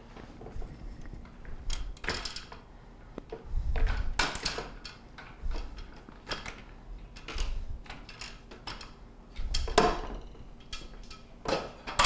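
Irregular plastic clicks, knocks and rattles as the top-rack adjuster arm is worked off a KitchenAid dishwasher's wire rack by hand, with a few duller thumps of the rack.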